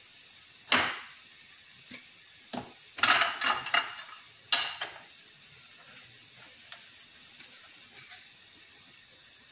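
Onions and spices sizzling faintly and steadily in a frying pan, with several sharp clinks and knocks of kitchen utensils and containers in the first half.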